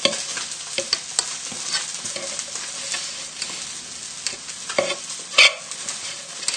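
Rainbow trout frying in a pan on high heat, a steady sizzle, over irregular scrapes and taps of a metal fork crushing boiled new potatoes against the side of a non-stick saucepan, with the loudest scrapes about five seconds in.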